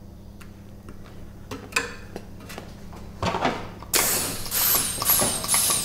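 Light handling clicks as an air chuck is fitted to the tubeless mountain-bike tyre's valve. About two-thirds of the way in, air starts hissing into the tyre in quick repeated bursts, each with a high falling whistle, as the tyre is reinflated.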